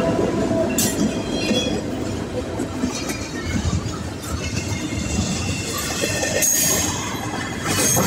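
Double-stack intermodal freight train rolling past: container well cars rumbling and clattering over the rail joints, with brief high wheel squeals and sharp metallic clanks about a second in and again near the end.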